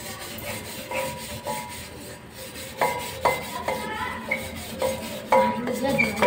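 Hands scrubbing and rubbing a metal hookah base, with background music of short, clear notes coming in about three seconds in.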